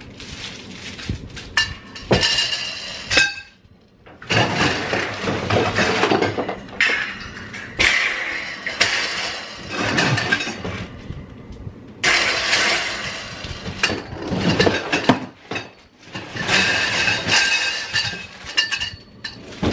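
Metal wire shelves and poles of a clothing rack clinking and rattling as they are lifted and shifted out of a cardboard box, with cardboard and plastic wrapping rustling, in several bursts with short pauses between them.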